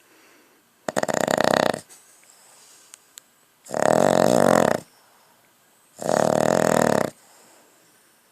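Snoring made while awake: three loud, rattling snores, each about a second long, coming about every two and a half seconds.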